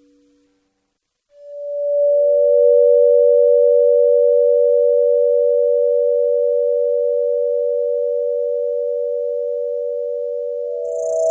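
Two steady pure tones close together in pitch, from the Relaxing Soundscape app, come in about a second in and slowly fade. A third, slightly higher tone and a high hiss join near the end.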